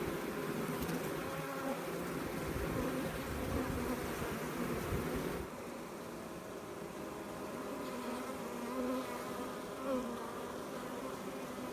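A honey bee swarm buzzing: many bees flying close by, an overlapping hum of wavering pitches. A low rumble underneath stops abruptly about halfway through.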